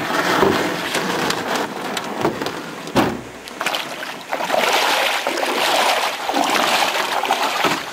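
Canoe paddling: water swishing and splashing from paddle strokes, swelling and fading twice, with a single sharp knock about three seconds in.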